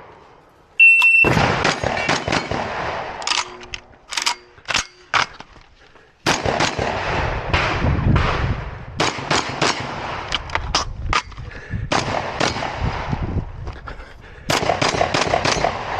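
A shot-timer beep just under a second in, then a practical-shotgun stage fired: many shotgun shots in quick strings with short pauses between them, the fastest strings in the second half.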